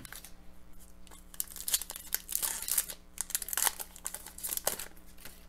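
Foil wrapper of an Upper Deck hockey card pack crinkling and tearing as it is ripped open. A dense run of sharp crackles starts about a second in and stops near the end.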